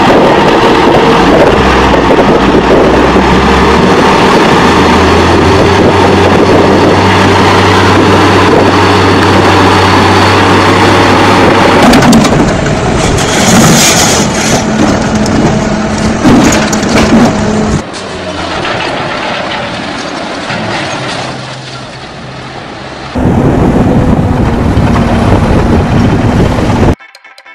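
Loud vehicle engine noise across several clips, with a steady low engine hum through the first twelve seconds. The sound changes abruptly at each cut, about 12, 18 and 23 seconds in, and drops away near the end.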